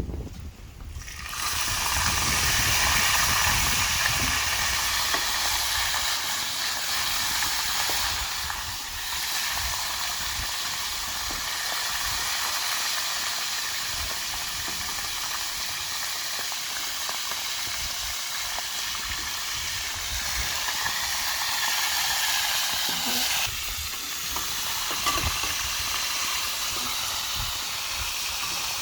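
Parrotfish frying in hot oil: a loud, steady sizzle that starts suddenly about a second in.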